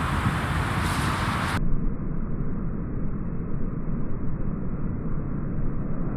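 Low, steady rumble of rolling thunder from a thunderstorm. A higher hiss over it cuts off abruptly about one and a half seconds in, leaving only the rumble.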